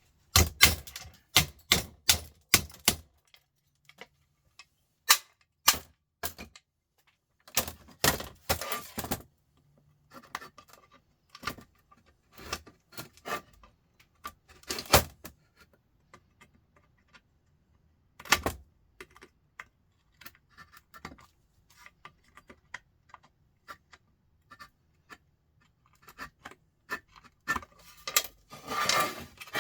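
Sharp metallic clicks, knocks and clatters from hand tools working the small metal parts of a sandwich maker being taken apart. They come in irregular clusters with short quiet gaps between.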